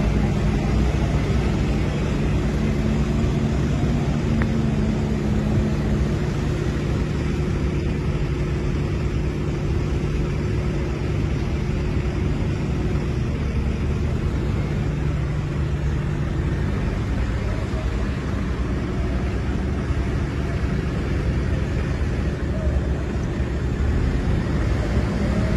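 Diesel engine of a Bull HD76 backhoe loader running as the machine drives, a steady engine note over dense low noise; the note fades about two-thirds of the way through.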